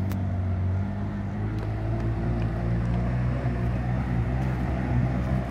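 A small runabout speedboat's engine idling with a steady low drone, its pitch shifting slightly now and then.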